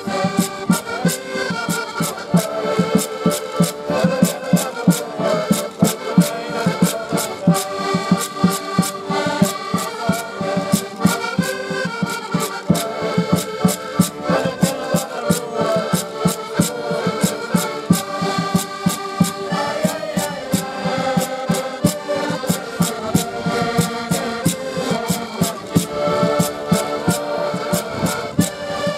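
An ensemble of accordions playing a lively traditional folk tune together, with sustained chords over a steady clicking beat.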